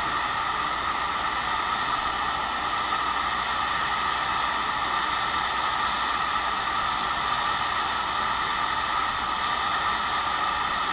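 Wagner heat gun blowing steadily, a rush of hot air with a steady motor whine in it, as it melts the solder to attach a replacement EEPROM chip to a TV main logic board.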